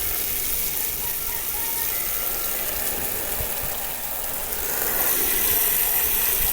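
Garden hose spraying a jet of water against ATV plastic, a steady hiss that gets a little louder about two-thirds of the way through. The spray is washing softened spray paint off the plastic.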